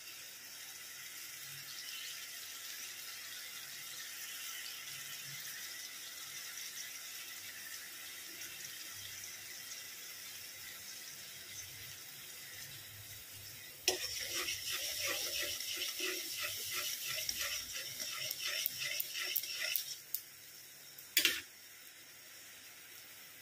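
Yogurt and mustard gravy simmering in an aluminium kadai, a steady faint hiss. About fourteen seconds in, a louder, rapidly pulsing watery bubbling starts and lasts about six seconds. A short sharp clatter follows just before the end.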